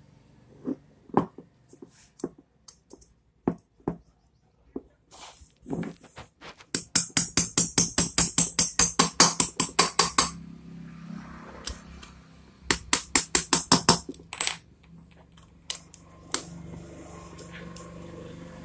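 Metal clicking and tapping as rocker-arm pins are worked into a motorcycle cylinder head by hand: a few scattered clicks, then a fast, even run of clicks for about three seconds, a second shorter run, and a single metallic ping.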